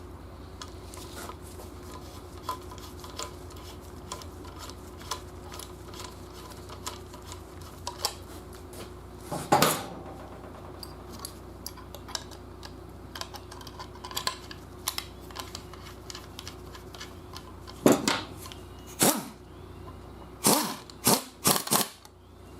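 Small metal clicks and clinks of a hand rivet nut tool being worked, with the rivet nut threaded on the mandrel and set by squeezing the handle. There is a louder clack about ten seconds in and a cluster of sharp clacks near the end, over a faint steady hum.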